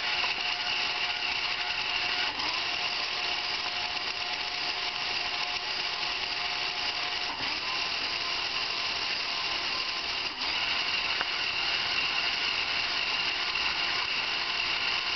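12-volt DC motors of a four-wheeled robot platform, driven by an L298 H-bridge, whining steadily as they spin the wheels through a test sequence that runs them in both directions. The whine dips briefly about ten seconds in and stops at the very end.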